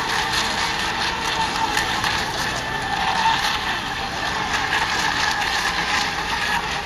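Several radio-controlled racing boats running at speed over the water, a steady motor whine with no break.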